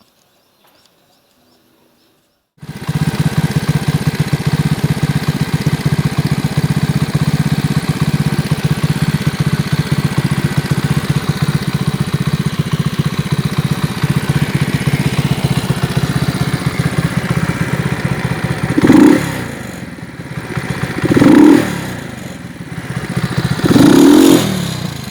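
Alpha 110cc moped engine catching suddenly about two and a half seconds in and idling steadily, then revved up three times near the end. It is being run after the correct gasket was fitted in place of a wrong one that the piston had been knocking against.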